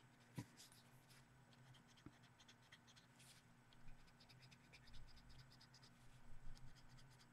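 Faint scratching of a pencil tip on colouring-book paper, rubbing and blending pastel colour in many quick short strokes.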